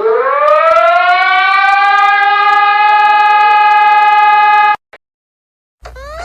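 An emergency alert siren sounds: its pitch rises quickly, then holds as one loud steady tone, and it cuts off suddenly about a second before the end.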